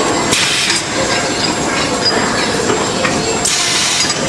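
Servo-drive bag-on-roll making machine running steadily with a dense mechanical noise, with two short bursts of hiss, about half a second in and again near the end.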